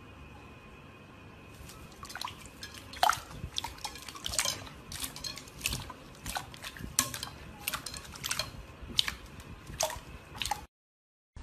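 Slime being worked, making irregular wet pops and clicks, some sharp and loud, over a faint hiss. It cuts off suddenly near the end.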